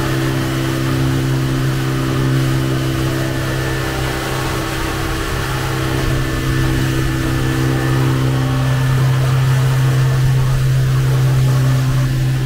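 40 hp outboard motor of a passenger launch running at a steady cruising speed, one constant drone, over the hiss of the churning wake and wind.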